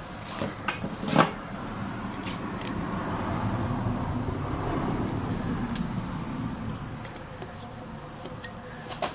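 Small metal clicks and rubbing as the choke rod is worked into its hole on a motorcycle carburetor by hand, with a few sharp taps and a rustling scrape that builds in the middle and fades.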